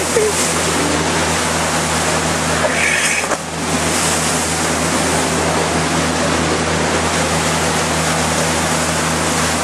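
Motorboat engine droning steadily under loud rushing and splashing of water from the boat's wake and spray. A jet ski passes close by about four seconds in, throwing spray.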